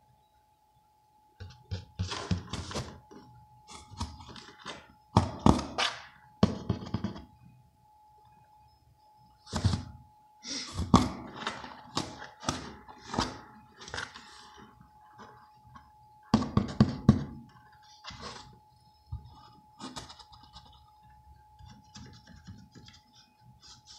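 Cat playing inside a cardboard box, pawing and biting at a finger: irregular thumps, knocks and scratchy scrabbling on the cardboard, coming in several short flurries.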